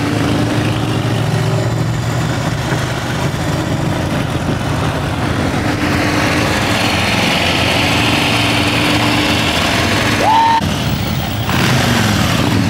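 Engines and road noise of vehicles riding together on the street, a group of motorcycles including a Harley-Davidson Street Bob close by, running steadily. About ten seconds in there is a short rising squeal.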